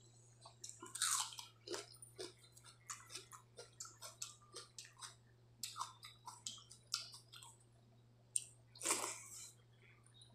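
Close-up mouth sounds of eating water-soaked rice (pani bhat) by hand: wet chewing and rapid lip smacks, with two louder wet squelches about a second in and near the end.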